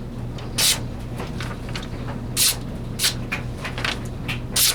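A sharp paring knife slicing through thick paper in a series of short hissing strokes, about five clear ones with fainter ones between.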